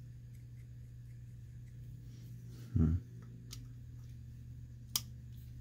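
Small carburetor parts being handled during reassembly, with one sharp click near the end, over a steady low hum. A short low murmur about three seconds in.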